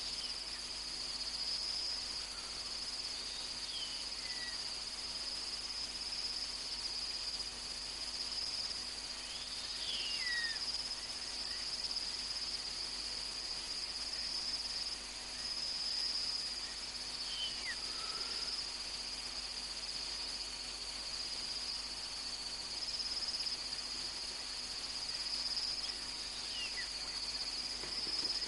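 Steady night chorus of crickets, a continuous shrill trill. Four faint downward-sliding whistled calls come through it, spaced several seconds apart.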